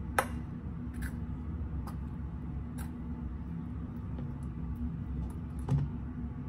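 A hand mixing flour and water in a stainless steel bowl, with scattered sharp clicks and knocks of fingers against the metal; the loudest comes just after the start and another near the end. A steady low hum runs underneath.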